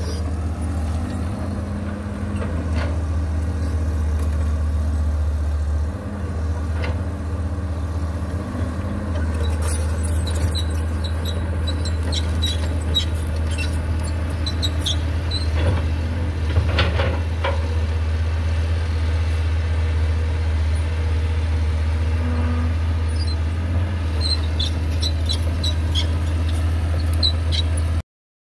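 Caterpillar 320CL hydraulic excavator's diesel engine running steadily under digging load, with short squeaks and a few clanks from the working arm and bucket. The sound cuts off suddenly near the end.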